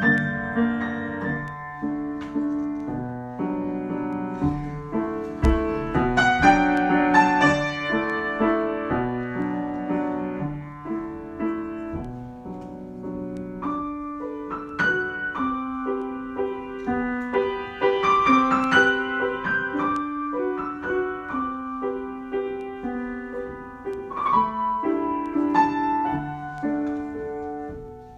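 Solo piano improvisation: a continuous run of chords and melodic notes, swelling louder about six to eight seconds in and again around eighteen seconds.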